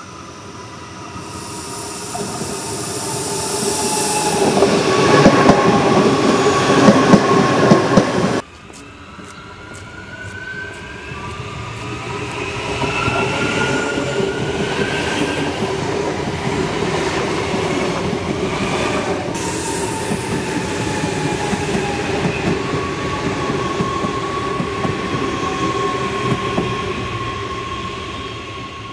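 Adelaide Metro 4000-class electric trains passing close on steel rails, wheel and motor noise swelling to a loud peak that cuts off suddenly about eight seconds in. A second train follows with a rising whine, then after another sudden change a steady whine fades out near the end.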